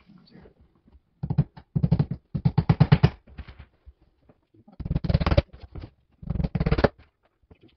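Hammer tapping small nails through the thin back panel into the bookshelf's pressed-board frame, in quick runs of sharp taps with short pauses between nails.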